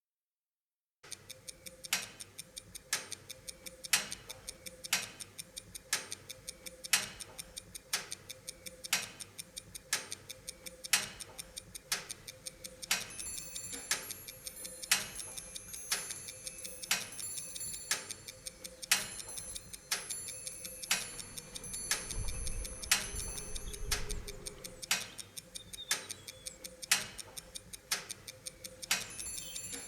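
Clock ticking: a loud tick about once a second, with fainter, quicker ticks in between.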